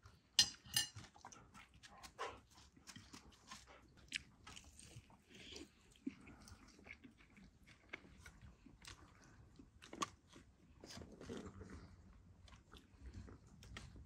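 People biting into and chewing fried stuffed bulgur meatballs with crisp crusts: scattered small crunches and clicks, the two sharpest about half a second apart near the start.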